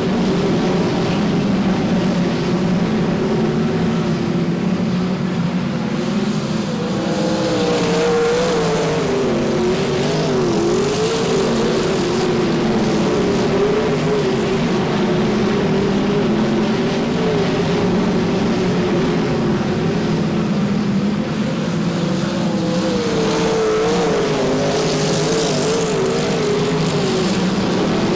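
Winged sprint cars' V8 engines racing on a dirt oval: a steady, loud wall of engine noise whose pitch wavers as the cars work through the turns. It rises as they power out about a quarter of the way in and again near the end.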